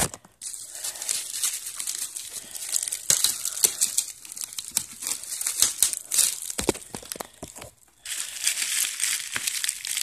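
Bubble-wrap plastic around a boxed fan crinkling and crackling as hands work at it, with some tearing. It stops for a moment about eight seconds in, then starts again.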